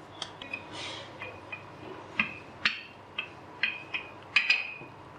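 Wooden rolling pin rolling out a small round of dough on a hard countertop: a light rustle of rolling with a series of sharp clicks and knocks as the pin taps and clatters against the counter, most of them in the second half.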